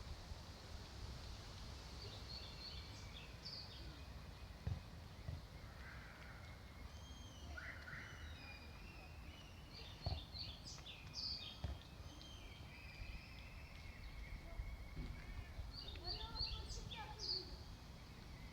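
Birds chirping and calling in a busy scatter of short high notes, over a steady low background rumble of outdoor noise, with a few soft knocks.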